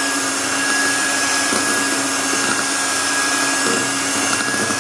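Handheld electric mixer running at high speed, its twin beaters whisking egg and sugar batter in a glass bowl: a steady motor hum with a thin high tone. This is the sponge-cake stage of beating the eggs and sugar until the batter turns pale and light.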